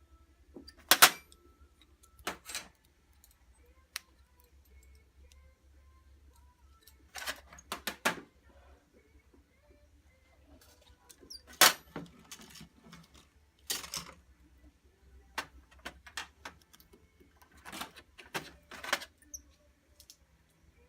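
Scattered sharp clicks and light clatter from hand pliers and tools working orthodontic clasp wire, some single and some in short clusters a second or so long.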